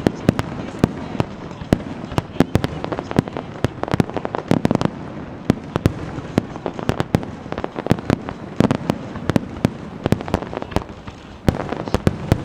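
Aerial fireworks display: many sharp crackling bangs at irregular intervals, several a second, over a steady rumbling haze of bursts, easing off briefly about eleven seconds in.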